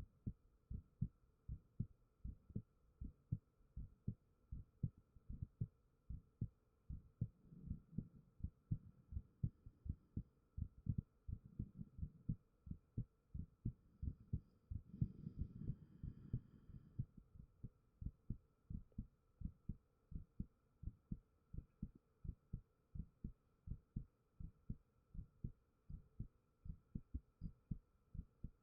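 A person's own heartbeat, close-miked through a 3Dio binaural microphone: a steady rhythm of soft, low thumps, with a faint steady hum underneath.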